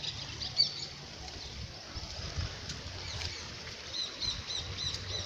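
Small songbird chirping: short high chirps, a few in the first second and then a quick run of several a second near the end, over a low rumble of wind on the microphone.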